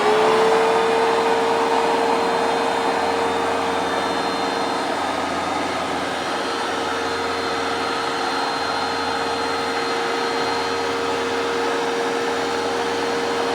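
Hoover Dual Power Max carpet cleaner running: its motor whine rises to speed in the first moment and then holds steady over a constant rush of suction.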